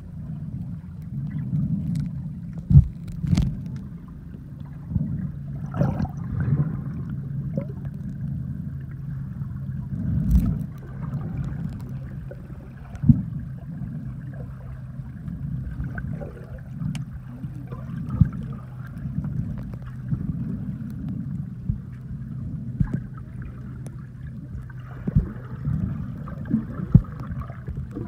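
Muffled underwater sound picked up by a snorkeler's submerged camera: a steady low hum with sharp knocks now and then, loudest about three seconds in and again around ten seconds.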